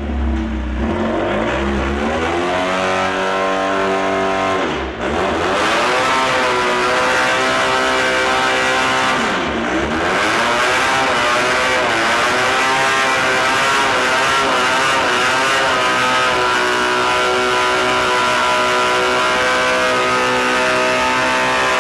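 Mini pulling tractor's engine revving loud in a stationary burnout, its hard rubber rear tires spinning on a rubber mat. The pitch climbs, drops sharply about five and ten seconds in as it shifts up, then is held high near the top of third gear.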